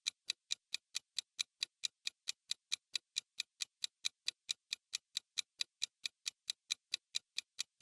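Countdown-timer clock ticking sound effect: a steady run of crisp, evenly spaced ticks, about four or five a second.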